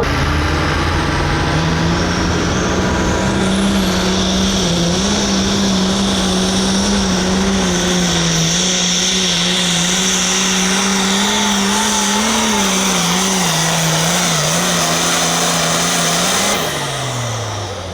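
Turbocharged diesel farm tractor engine running at full power under load during a pull, its pitch held high and wavering, with a high turbo whine rising in the first few seconds. About a second before the end the engine pitch drops and the sound falls away as it is throttled back.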